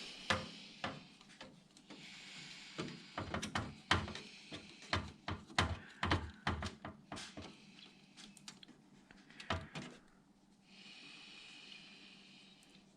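Irregular small clicks and taps of a screw and screwdriver being worked into a PC case or motherboard, thickest in the first ten seconds, with soft hissing stretches a couple of seconds in and again near the end.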